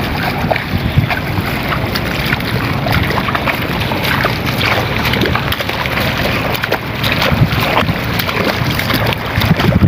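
Strong wind buffeting the microphone, with bare feet splashing through shallow water in repeated short splashes.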